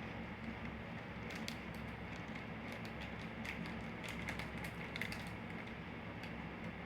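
Faint eating sounds: scattered small clicks and crackles over a steady low hum.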